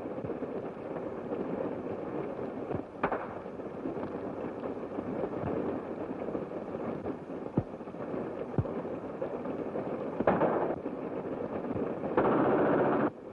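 Gunfire on an early-1930s film soundtrack: a few sharp single shots, then a short burst and a longer burst of about a second near the end, typical of machine-gun fire. A steady hiss of the old soundtrack runs underneath.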